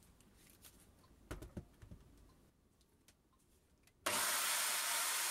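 A few light clicks and knocks of a drill chuck being handled and tightened, then, about four seconds in, a 240-volt mains pistol drill in a drill stand switches on abruptly and runs at full speed, spinning a grinding wheel with a steady, even rushing noise.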